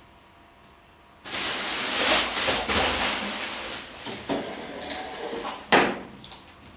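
A sudden loud hissing rush starts about a second in and dies away over the next few seconds. A few sharp knocks and clatters come in as it fades.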